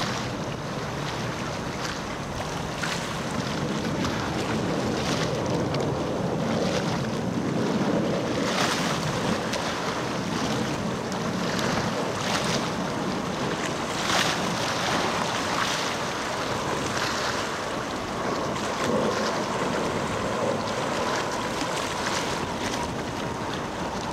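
Distant jet roar of F/A-18 Hornets flying in formation: a steady rushing noise that swells slightly a few seconds in, with wind buffeting the microphone.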